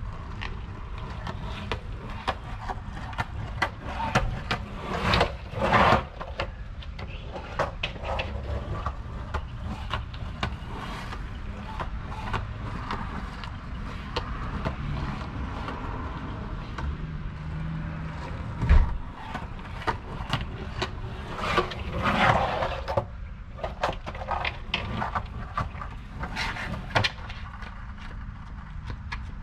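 Skateboard wheels rolling on asphalt with repeated clacks and knocks of the board, the sharpest knock a little past halfway. A car drives past midway.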